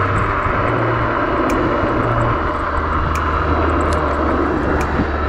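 Steady riding noise from a VSETT 11+ electric scooter at speed: tyre noise over cracked asphalt and wind on the microphone, with a few sharp clicks as it runs over bumps.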